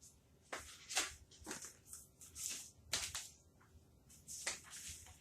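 Paper and packaging rustling and crinkling as the contents of an air fryer box are handled: a string of irregular short brushing strokes.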